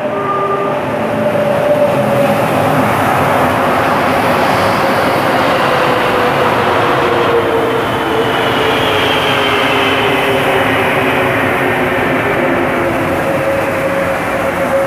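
Rubber-tyred Mexico City Metro train pulling into the platform. It makes a loud, steady rush that swells over the first couple of seconds, and thin whining tones slide slowly down in pitch as it slows.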